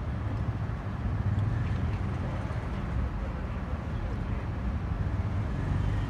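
Steady low outdoor background rumble, with no clear bird call standing out.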